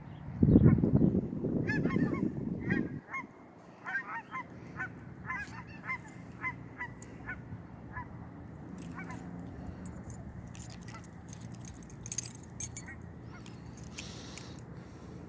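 Geese honking, a string of short calls about two a second that thins out after about eight seconds. A loud low rush of noise covers the first few seconds, and scattered sharp clicks come near the end.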